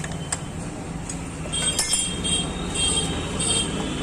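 Light metallic clinking as tools and motorcycle parts are handled: a couple of sharp clicks, then a quick run of ringing clinks in the second half, over a steady low hum.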